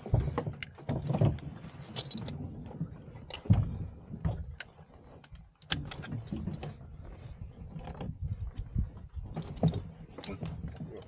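Glider seat harness being fastened and tightened: metal buckle fittings clinking and clicking irregularly, with straps rustling.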